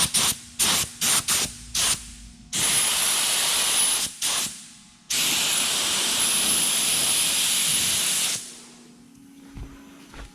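Compressed-air primer spray gun spraying: about six quick short trigger pulls in the first two seconds, then longer passes of about a second and a half and about three seconds, the hiss of air and primer cutting off sharply each time the trigger is released.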